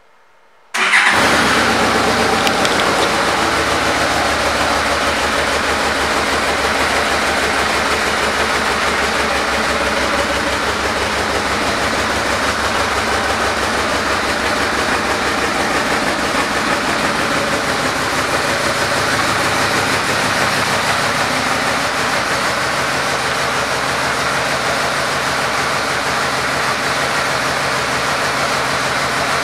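Yamaha Royal Star Venture's 1294 cc V-four engine starting up about a second in, then idling steadily.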